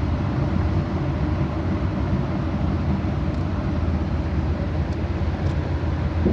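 A steady low mechanical rumble running without a break.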